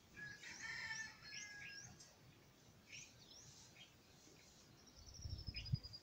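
Faint birds chirping in the background: short, quick rising chirps, then a falling run of high notes about four seconds in. A low thump near the end.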